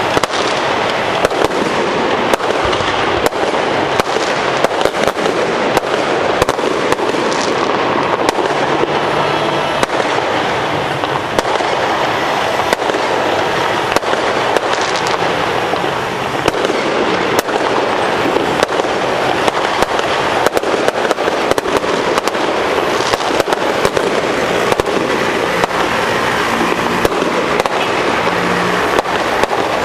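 Fireworks going off in a dense, continuous crackle, with many sharp pops throughout.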